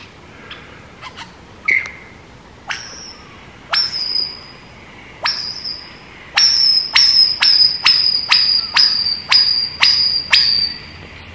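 Superb lyrebird singing: loud, sharp whistled notes, each a quick downward sweep that settles on a steady high pitch. A few soft chirps and scattered notes come first, then about halfway through the notes follow in a fast series of about two a second.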